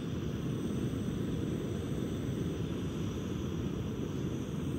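Portable camp stove burner running with a steady, deep rushing noise while it heats water.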